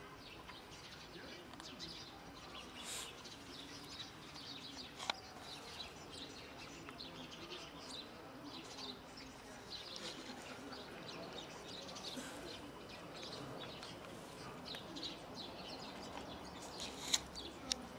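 Small birds chirping faintly and repeatedly in the background, with a few sharp clicks near the end.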